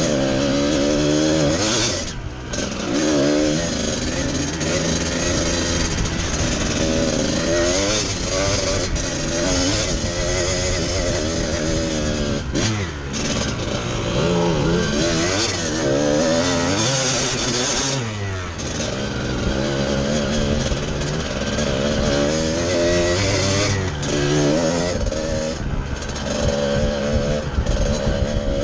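Trail motorbike engine being ridden, its revs rising and falling again and again, with short drops in the engine note when the throttle comes off about two seconds in, around halfway and again a few seconds later.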